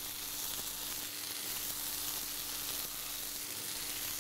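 Turkey scaloppa with peppers sizzling steadily in a lightly oiled non-stick frying pan on a gas burner, with a faint steady hum underneath.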